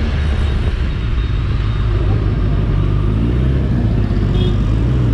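Motorcycle engine running under way with a steady low rumble, pitch climbing briefly about three seconds in as it accelerates, over road and wind noise.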